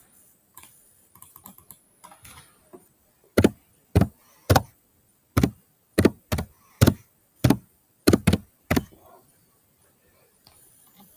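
Computer keyboard being typed on: a few faint clicks, then eleven slow, separate keystrokes about half a second apart.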